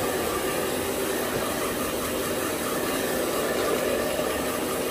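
Handheld hair dryer running steadily, blowing cool air over a puppy's damp coat.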